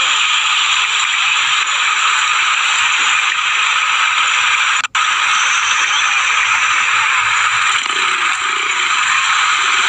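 River in flood rushing, a steady loud hiss of fast-moving water. It breaks off for an instant about five seconds in.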